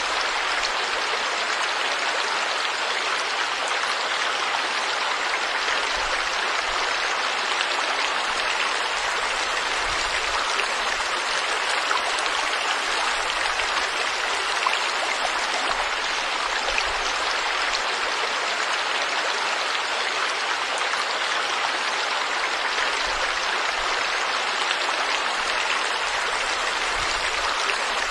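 Forest stream or river water flowing steadily over rocks, a continuous rushing splash.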